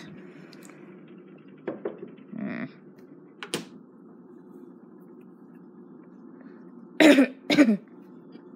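A person coughs twice in quick succession, the loudest sounds, after a few light clicks and knocks from things being handled, over a steady low hum.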